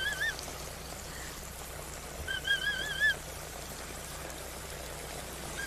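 Water spraying from a slip 'n slide's sprinkler jets and spattering on the plastic, a steady patter. A short warbling whistle-like tone sounds at the start and a longer one about two seconds in.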